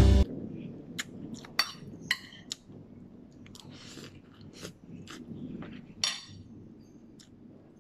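Music cuts off right at the start. Then close-up eating sounds: a person chewing and biting roast chicken and rice, with scattered sharp clinks of a metal spoon against the plate and mouth smacks.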